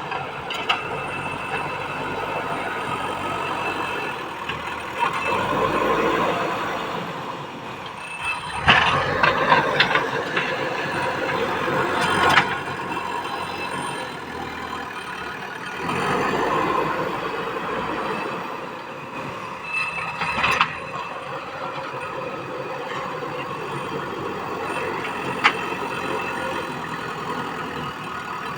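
JCB 3DX backhoe loader at work: its diesel engine runs steadily, rising in several swells, with a few sharp knocks from the machine.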